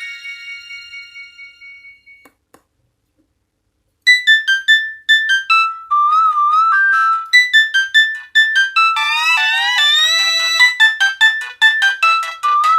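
Nokia X1-01 phone ringtones: the last notes of one melody fade away, a faint click, a short silence, then about four seconds in a new synthesized ringtone tune begins, with warbling trills and quick rising runs of notes.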